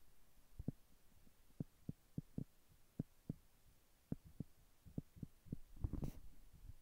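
Fingertips tapping on a tablet's touchscreen: about a dozen faint, soft, irregular taps, with a brief rustle about six seconds in.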